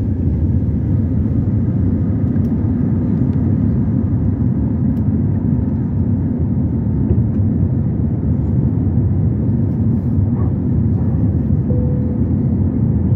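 Cabin noise of an Airbus A320 taking off: the engines at takeoff power give a steady, loud rumble through the takeoff roll and lift-off.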